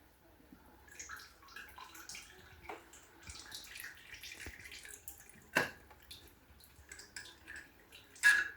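Engine oil dripping and trickling from the Massey Ferguson 35X's loosened oil filter holder, many small irregular drips. Two louder sharp knocks, about five and a half seconds in and near the end, the second the loudest.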